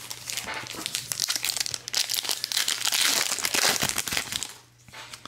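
Plastic wrapper of a Donruss basketball card pack being torn open and crinkled in the hands: a dense crackling, loudest a couple of seconds in, that stops shortly before the end.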